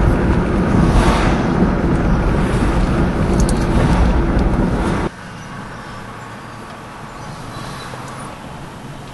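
Road traffic noise, a loud low rumble. About five seconds in it drops suddenly to a quieter, steady hum.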